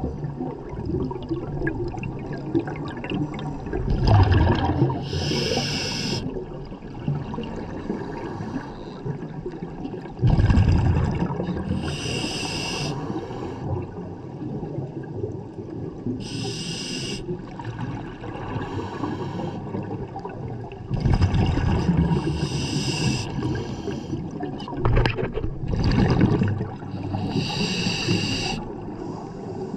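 A scuba diver breathing underwater through a regulator. Each inhale through the demand valve gives a short hiss, five times, about every five seconds. Between them come low bubbling bursts of exhaled air from the exhaust valve.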